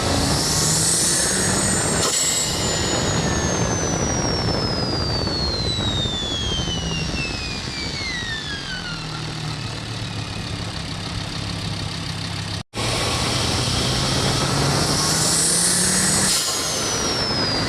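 Turbocharged engine running under boost with a high turbo whistle. The whistle rises, then winds down in a long falling whine as the RKX-tech aftermarket diverter valve lets the boost off. After a brief dropout about two-thirds in, the whistle rises and falls again.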